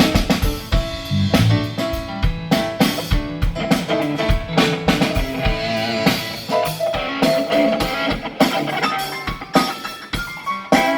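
A live band sound-checking: a drum kit played with steady, frequent hits under guitar playing sustained notes.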